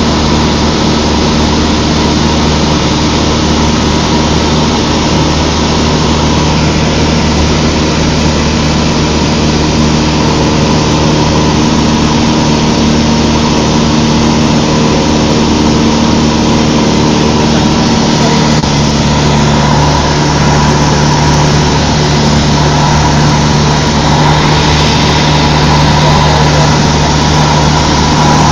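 Cessna 152's four-cylinder Lycoming piston engine and propeller running steadily in flight, loud and droning, as heard inside the cabin. About two-thirds of the way through, the engine note shifts slightly.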